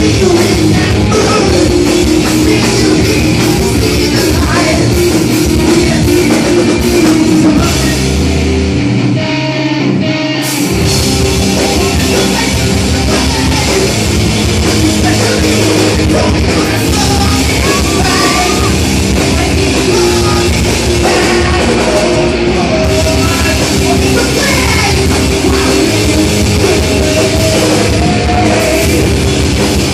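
A live heavy metal band playing: drum kit, distorted electric guitars and bass, with a vocalist singing into a microphone. About 8 seconds in, the drums and cymbals drop out for a couple of seconds, and then the full band comes back in.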